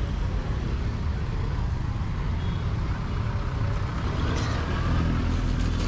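Busy road traffic: the engines of buses, jeepneys and cars running in a steady low rumble, with one engine's note rising near the end.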